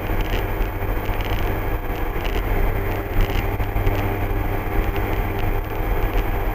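Steady drone of an MD3 Rider ultralight's engine and propeller in flight, heard from inside the cockpit.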